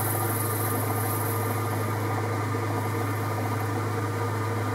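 Metal lathe running steadily with a low hum, its four-jaw chuck spinning a nylon split bush. In roughly the first second and a half a high hiss sits over the hum as the tool cuts a small lead-in chamfer on the nylon.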